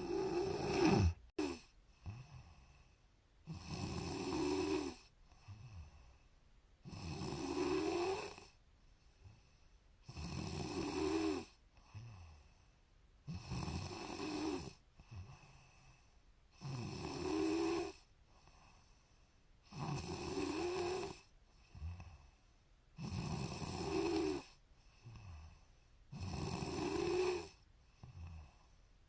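A woman snoring in her sleep: a loud snore on each breath roughly every three and a half seconds, with a softer sound between them. A short, sharp noise about a second in is the loudest moment.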